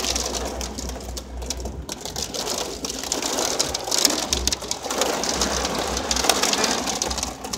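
Heavy rain pelting the car's roof and windows, heard from inside the cabin as a dense, crackling patter over a low steady hum.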